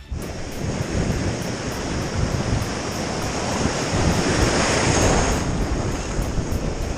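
Broken surf washing and churning right around a GoPro held at water level, with wind buffeting the microphone. The rush of water grows louder about four seconds in as a line of whitewater comes through, then eases.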